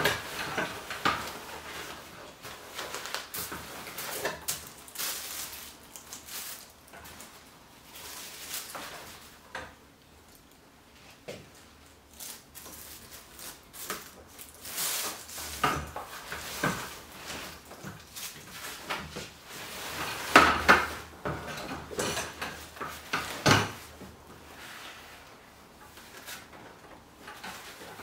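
Metal frame of a collapsible folding wagon clicking, clattering and clanking as it is folded up, with two loud clanks about three-quarters of the way through.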